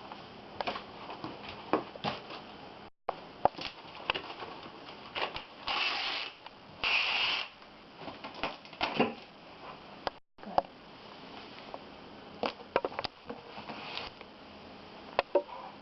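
Handling noises: rustling with scattered clicks and knocks, and two short rasping sounds about six and seven seconds in. The sound cuts out briefly three times.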